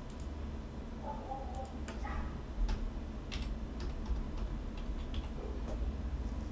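Computer keyboard and mouse clicks: a scattered run of sharp, separate clicks as a short number is typed in, over a steady low hum.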